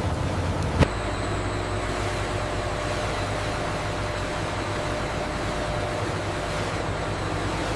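Steady industrial machine noise: an even rushing hiss over a low hum, with a single sharp click just under a second in, where the low hum changes.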